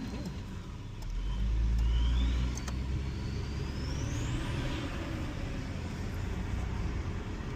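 Holden VY Commodore's engine and road noise heard from inside the cabin while driving, with a louder low rumble for a second or two about a second in and a faint rising whine midway.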